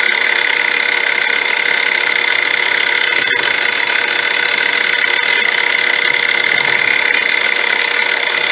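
Milling machine running steadily with a constant high whine, its cutter working cooling fins into a metal carburetor spacer plate.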